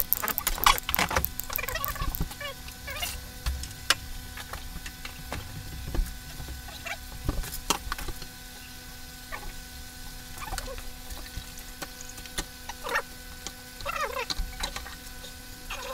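Scattered knocks and clatter of equipment being moved and a plastic filter tube being handled, over a steady low electrical hum.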